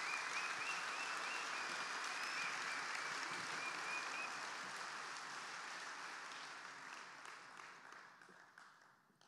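Large audience applauding, the clapping holding steady and then fading out over the last few seconds. A high steady tone sounds above it for the first four seconds.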